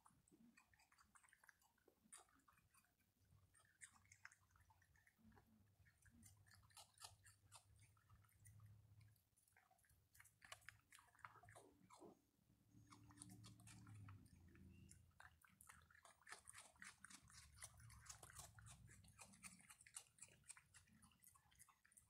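Faint raccoon chewing and crunching at a pile of food, many small crisp clicks and crackles that come thicker in the second half as two raccoons feed together.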